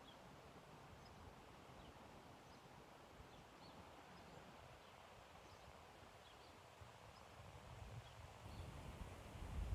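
Near silence outdoors: faint, short, high bird chirps scattered about once a second, with a low rumble building near the end.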